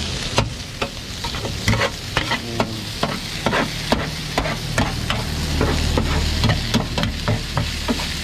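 Metal spatula scraping and clacking against a large flat griddle pan as noodles and greens are stir-fried, with many irregular sharp clacks over a steady sizzle. A steady low hum runs underneath.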